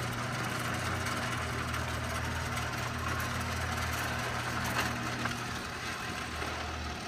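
Genie PowerLift 900 half-horsepower garage door opener running steadily as it drives a rolling gate open, with a low motor hum and a click or two about five seconds in.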